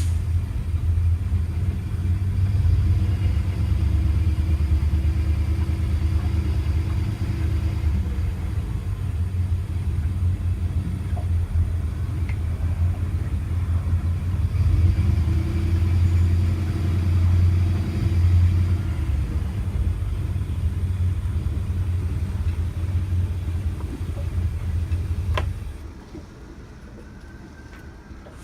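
Inboard engine of an old cabin cruiser running steadily with a low rumble. It falls away about 25 seconds in, leaving a faint hiss.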